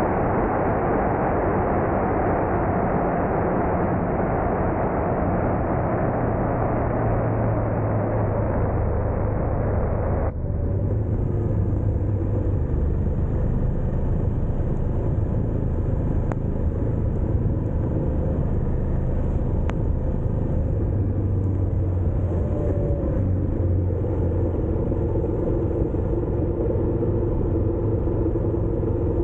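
Ducati Multistrada motorcycle under way: a steady engine drone buried in heavy wind noise on the microphone, until the wind noise cuts off suddenly about ten seconds in and the engine's steady hum comes through more clearly.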